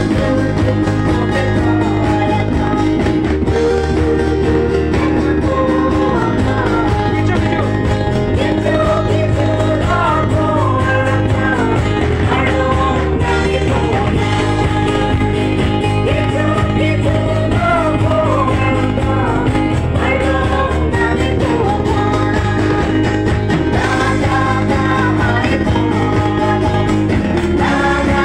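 Live band music: several singers leading a song together, backed by guitar and drums, at a steady loud level.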